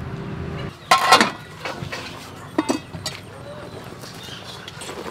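A ladle clinking and stirring in a steel cooking pot of octopus, with a loud short call about a second in and a fainter one a couple of seconds later.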